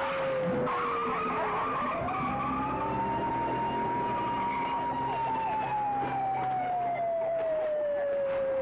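Police car siren wailing: its pitch slides down, swoops up about two seconds in, then slides slowly down again. Underneath are car engines and screeching tyres.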